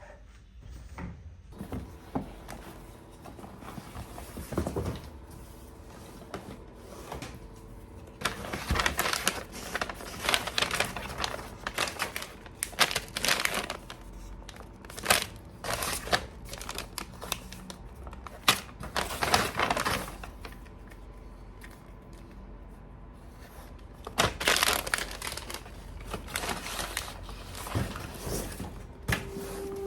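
Packaging being handled and unwrapped: crinkling, rustling and tearing of paper or plastic in irregular bursts, with quieter pauses between.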